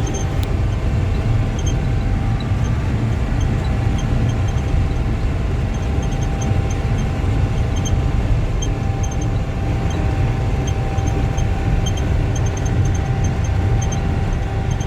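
Swather running steadily while cutting wheat: a constant engine and machinery drone with a steady whine over it.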